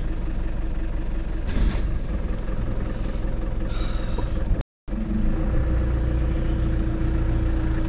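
A 1997 Land Rover Defender 110's engine running steadily, a low rumble with a steady hum, heard from inside the cab. The sound drops out completely for a moment a little past halfway.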